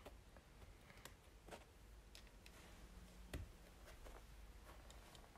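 Quiet, scattered clicks and taps of plastic LEGO bricks being handled and pressed together, with one sharper click a little past the middle.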